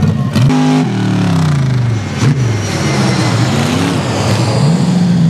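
Rock bouncer buggy's engine revving hard on a dirt course, its pitch climbing and dropping several times as the throttle is worked through the turns.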